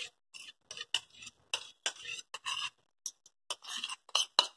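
A steel spoon scraping and tapping against a metal kadhai while ghee is spooned in: short irregular scrapes, about three a second, with a brief pause in the middle.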